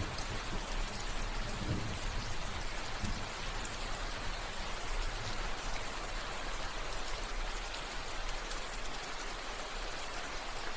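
Steady rain falling, an even hiss with scattered drop ticks. A low rumble underneath fades out in the first couple of seconds.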